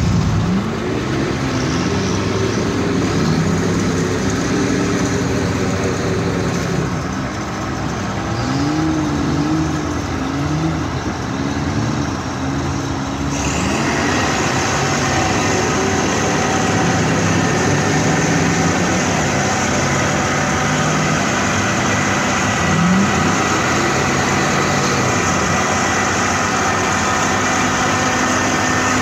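Crawler bulldozer's diesel engine working in mud, its pitch rising and falling again and again as it is throttled up and down. A brighter, steady noise joins about halfway through.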